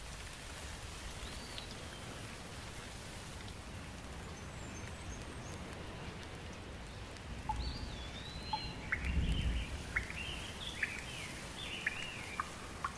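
Steady rain with birds calling: one short call about a second in, then a run of chirping calls from a little past halfway. There is a brief low rumble near the middle.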